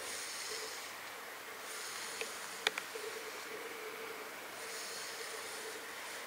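FURminator deshedding tool drawn through a short-haired cat's coat: scratchy brushing strokes, each lasting about a second, two of them standing out, with one small sharp click midway.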